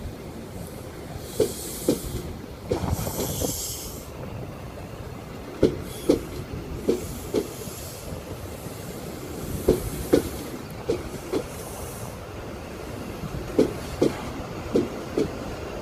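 Mark 3 coaches of an InterCity 125 HST rolling slowly past, the wheels clicking over a rail joint in close pairs, one pair for each bogie, with a group of clicks every few seconds as each coach end goes by. Brief bursts of hiss come in the first few seconds.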